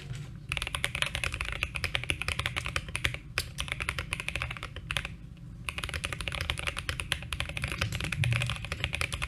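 Fast typing on an Akko Mod007 mechanical keyboard fitted with JWK Ultimate Black linear switches: a dense run of key clacks, with two short pauses, around the three- and five-second marks.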